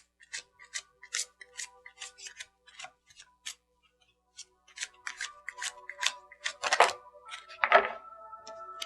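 Tarot cards being shuffled by hand: a run of short crisp snaps, about two or three a second, with a brief pause midway, over soft background music.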